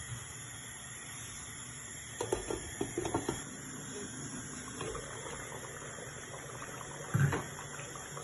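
Soup simmering in a stainless steel pot on the stove, a faint steady bubbling hiss, with a few clinks of the pot's metal lid being handled about two to three seconds in and a single knock near the end.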